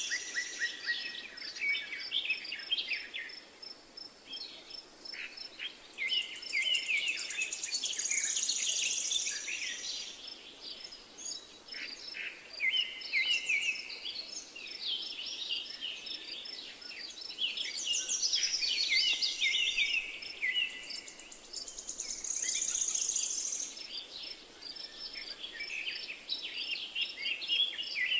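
Birds chirping and singing over a steady high insect drone, with a couple of louder insect buzzes.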